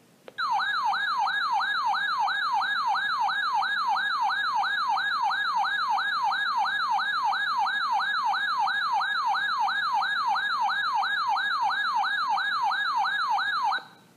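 Electronic siren-like alert tone from a weather alert radio sounding for an incoming warning: a pitch that sweeps rapidly downward and snaps back up, about three times a second. It starts abruptly, runs steadily for about thirteen seconds, then cuts off suddenly.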